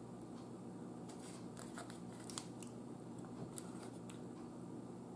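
Quiet eating sounds: soft chewing and handling of flaky samosa and naan, with a few small crackles and clicks scattered through, over a faint steady hum.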